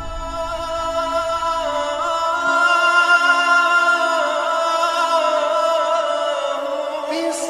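Background music: a long-held, slowly wavering melody over a steady drone.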